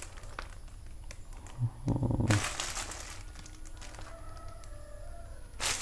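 Clear plastic packaging bags crinkling as they are handled, in two short bursts: one about two seconds in and one near the end.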